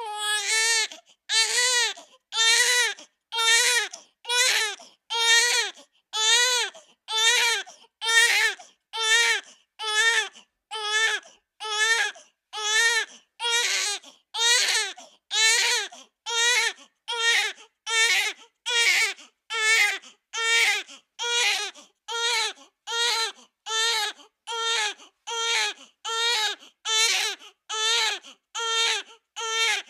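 Infant crying in short, evenly repeated wails, a little more than one a second, with brief gaps for breath between them.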